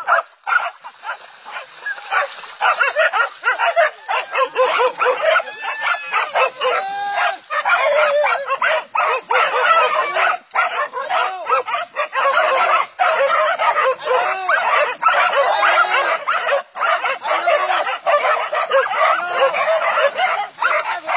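A pack of hunting dogs barking and yelping over one another without a break as they bay and attack a wild boar. The sound is a dense run of rapid, overlapping yelps.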